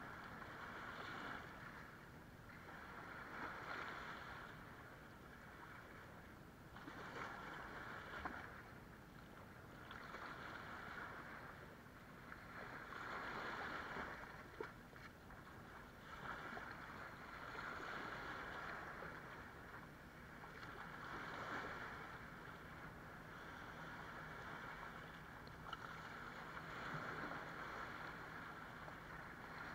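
Small waves washing up over sand and splashing around shoreline rocks, each surge swelling and fading every few seconds.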